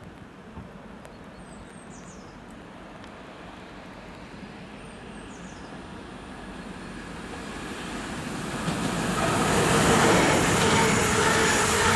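Class 442 Talent 2 electric multiple unit approaching and passing through the station, a rising rush of wheels on rail with a steady multi-tone traction-motor whine. It is loudest as the train goes by about ten seconds in. Faint bird chirps come through before it.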